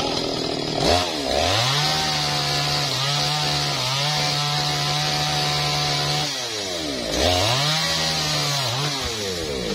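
Small MAESTRO mini two-stroke chainsaw cutting into a teak trunk, revved to full throttle twice: a long high run from about a second in to about six seconds, a drop back, then a second shorter run that falls away near the end.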